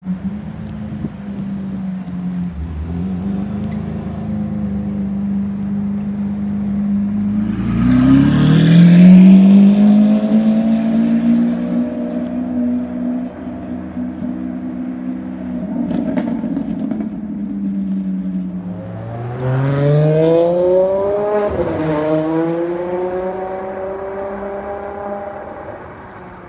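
Lamborghini Aventador V12 running at low revs, then revving hard about eight seconds in, its pitch climbing sharply to the loudest point. Later a second hard acceleration rises again, with a quick drop and recovery in pitch at a gear change.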